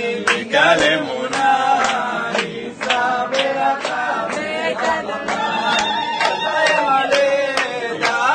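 A group of wedding guests singing together in long held notes, with sharp claps keeping a beat.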